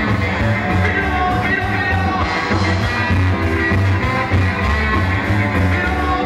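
Live ska band playing loud, up-tempo music with a singer, electric guitars, bass, drums and saxophone, with a heavy steady beat.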